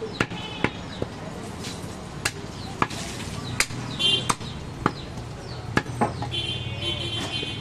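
Butcher's cleaver chopping goat meat on a wooden stump chopping block: a dozen or so sharp chops at an uneven pace.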